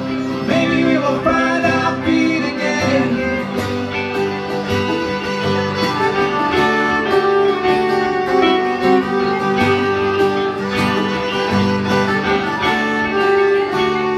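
Instrumental break of a live acoustic folk song: a fiddle plays long held notes over strummed acoustic guitar and picked banjo.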